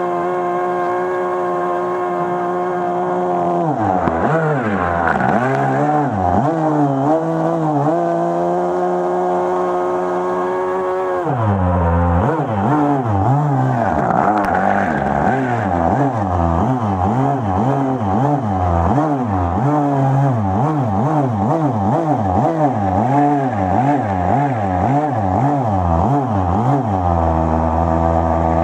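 O.S. 120 nitro glow engine of a radio-controlled airboat running at speed, driving its air propeller. Its pitch holds steady at first, begins to waver a few seconds in, then swings rapidly up and down about twice a second through most of the run before steadying again near the end.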